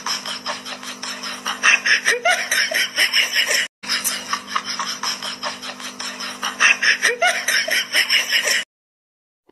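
People laughing hard in rapid bursts over a steady low hum. The sound drops out for an instant about four seconds in and stops abruptly about a second before the end.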